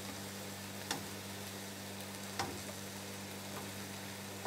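Beef chunks and onions frying in a wide pan, a steady sizzle. A couple of light clicks, about one and two and a half seconds in, as the tongs touch the pan.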